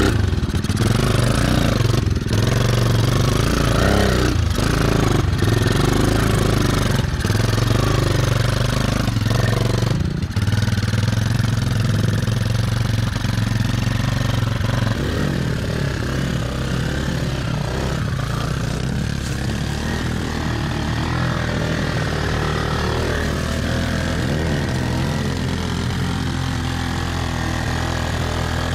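Motorcycle engine of a homemade three-wheeled trike running as it is ridden over grass. The sound breaks off briefly several times in the first ten seconds, then settles into a steadier, slightly quieter run.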